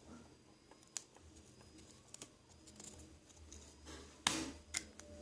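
Scattered small clicks and scrapes of the opened LED bulb's plastic parts being handled, the sharpest few coming near the end.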